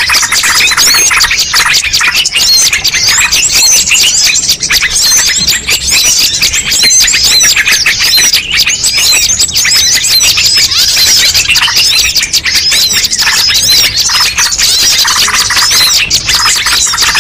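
Dense chorus of many small songbirds chirping and twittering over one another without a break: a mixed bird-lure call recording.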